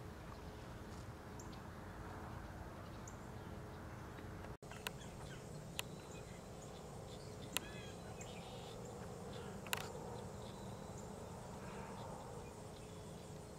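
Faint outdoor ambience: a steady low background with a few sharp clicks and a short chirp about seven and a half seconds in.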